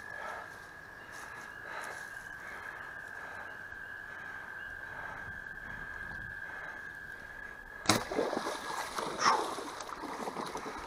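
A compound bow shot: one sharp snap of the string on release about eight seconds in, then splashing in the shallow water as the arrowed carp thrashes.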